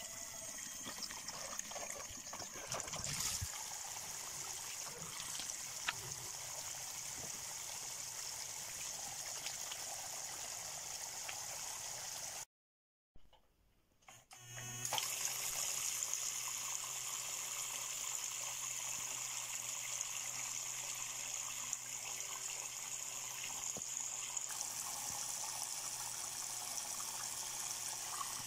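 Water trickling and splashing down a small homemade waterfall. After a brief cut about halfway through, a small water pump hums steadily under the running water.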